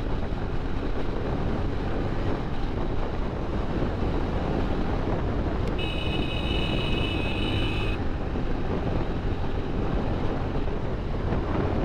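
Motorcycle engine running at cruising speed with wind rushing over the microphone. About six seconds in, a high-pitched steady tone sounds for about two seconds and cuts off suddenly.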